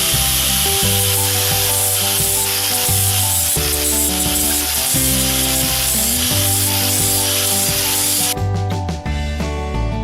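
Angle grinder with a sanding disc sanding a rough-cut oak board: a steady, loud abrasive hiss that stops about eight seconds in. Background guitar music plays underneath.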